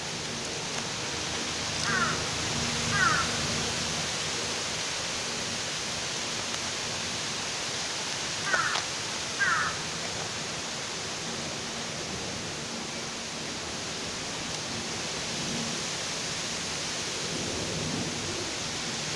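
Steady outdoor background hiss. A bird gives two short calls about two seconds in and two more about eight and a half seconds in.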